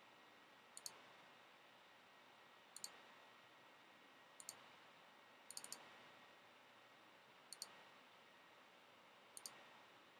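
Computer mouse clicking: six quick groups of clicks, mostly pairs, one every one to two seconds, over faint hiss.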